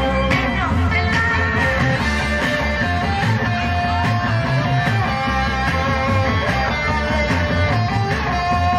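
Live band playing upbeat rock-style music, with electric guitar over a drum kit keeping a steady beat.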